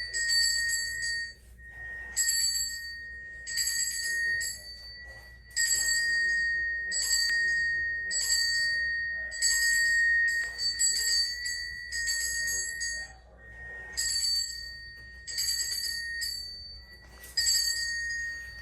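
A small bell struck over and over, roughly every one to two seconds, each strike ringing on in one clear high tone. It is being rung as the conditioned signal for a dog, with no treat following.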